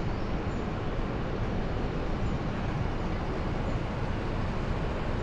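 The Marsyangdi river's water rushing, a steady, unbroken hiss-like noise.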